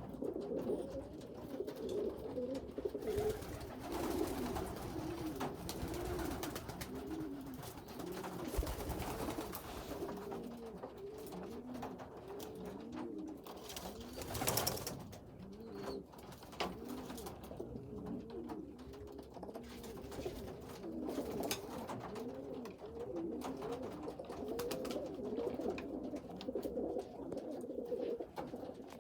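Several racing pigeons cooing continuously, their coos overlapping, with scattered light clicks and a brief burst of noise about halfway through.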